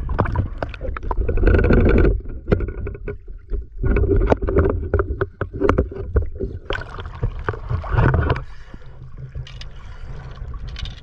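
Seawater splashing and gurgling around a camera held at the surface, with sharp knocks and clicks, in three louder surges about a second, four seconds and seven seconds in.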